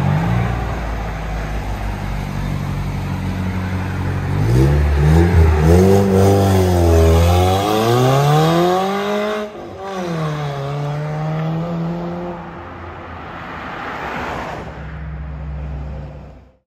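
2009 Mitsubishi Lancer running through a Flowmaster DBX muffler and Vibrant bottle resonator, with a deep exhaust note. It pulls away and revs up from about four seconds in, the pitch dropping sharply at a gear change about nine and a half seconds in, then rising again before the sound fades as the car moves off.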